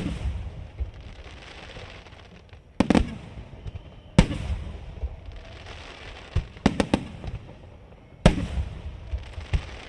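Aerial fireworks shells bursting: six groups of sharp bangs, some single, some in quick doubles or triples, every one to two seconds, with a steady hiss filling the gaps between bursts.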